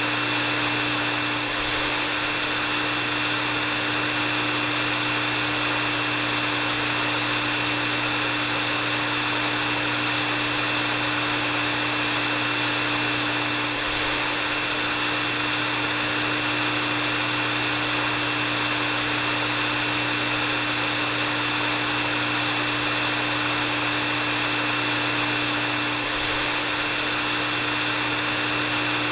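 Hair dryer running steadily: an even rush of blown air with a constant low motor hum and a high whine.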